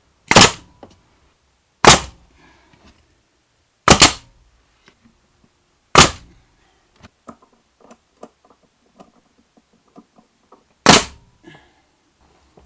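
Nails being driven into pine tongue-and-groove wall boards: five sharp, loud shots about two seconds apart, one of them a quick double about four seconds in, with a longer gap before the last and faint small clicks and taps in between.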